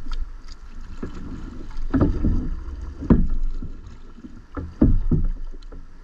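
Irregular low thumps and knocks on a small boat's hull, about seven in all, three of them coming close together near the end.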